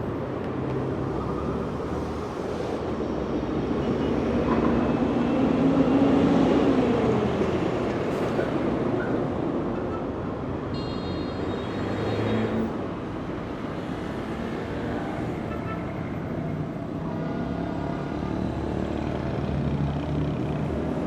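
Busy city street traffic: a steady rumble of engines and tyres from passing cars and heavy vehicles. About a quarter of the way in one vehicle passes louder, its engine note dropping as it goes by.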